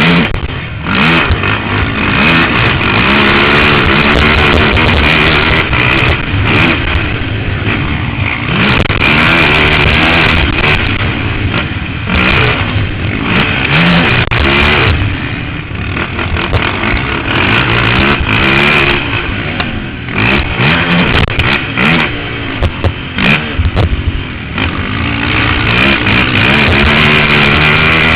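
Can-Am DS 450 ATV's single-cylinder four-stroke engine at race pace, the revs climbing and dropping again and again as it is driven hard through the gears, with a few short dips where the throttle is shut.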